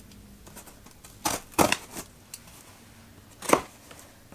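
Scissors cutting through the packing tape on a cardboard box: a cluster of short, sharp snips and tape crackles about a second and a half in, and one more about a second before the end.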